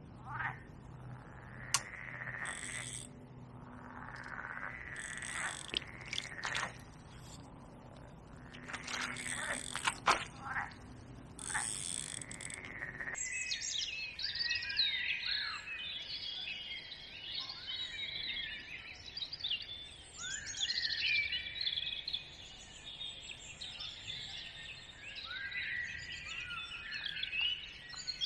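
Many songbirds singing at once in a dense chorus, starting suddenly about halfway through. Before that there is a low steady drone with scattered clicks and rustles of handling.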